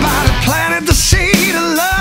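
Rock music with drums and a melodic line that slides up and down in pitch.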